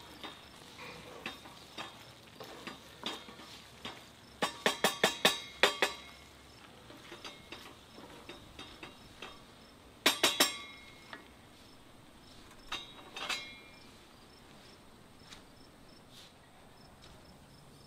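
Wooden spatula stirring tagliatelle in a cast iron skillet, knocking and clinking against the pan. There is a quick run of about eight sharp knocks about four and a half seconds in, another cluster about ten seconds in, and a couple more near thirteen seconds.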